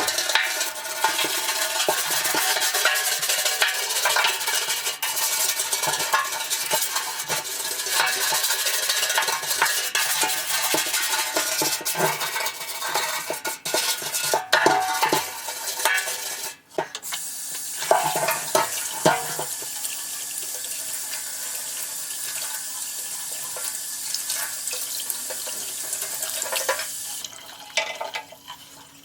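A metal motorcycle gas tank, from a 1982 Honda CB900F, being washed by hand in hot soapy water: sloshing, scrubbing and scraping with small knocks on the metal. A little over halfway through, water runs steadily and stops near the end.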